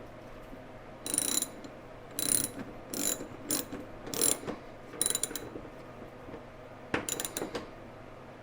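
Ratchet wrench clicking in short quick strokes, tightening hood hinge bolts: several runs of clicks in the first five seconds, then one more run near the end.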